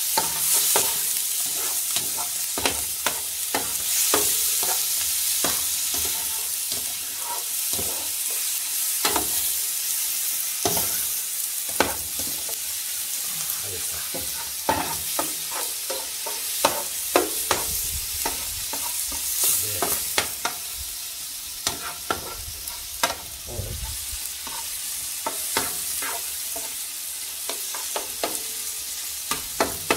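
Pieces of cuttlefish and baby squid sizzling in a steel paella pan over wood embers, with a steady frying hiss. A metal skimmer stirs them, scraping and clicking against the pan at irregular intervals.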